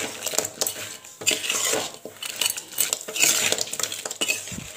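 A ladle scraping and clinking against a metal pan as a crab roast with drumsticks is stirred, in irregular strokes.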